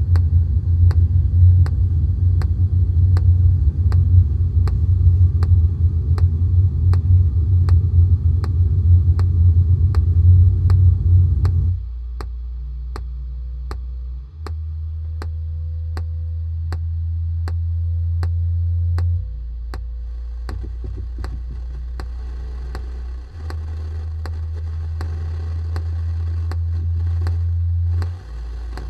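Industrial noise music: a heavy low rumble under a steady ticking pulse of about two clicks a second. About twelve seconds in, the rumble drops away to a bass drone that switches between a lower and a higher pitch every four to five seconds, the higher one swelling each time.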